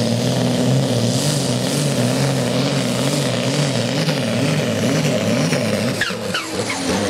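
Case IH MX285 pulling tractor's diesel engine running under full load as it drags the sled, its note wavering up and down about twice a second. About six seconds in the note drops away as the driver comes off the throttle.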